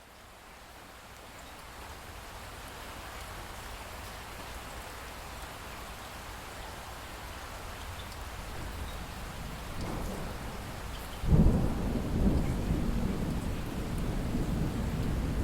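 Steady rain hiss fading in, then thunder breaks in with a sudden low rumble about eleven seconds in and keeps rolling.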